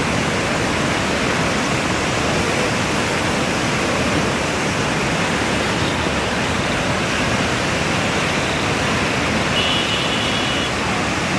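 Steady roar of a swollen river in flood: fast, muddy floodwater rushing past, an even rushing sound with no let-up.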